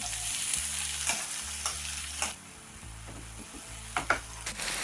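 Chopped onions sizzling as they drop into hot oil in a nonstick frying pan, with a slotted metal spatula scraping and clicking against the pan as they are stirred. The sizzle is loudest for the first two seconds, then dies down.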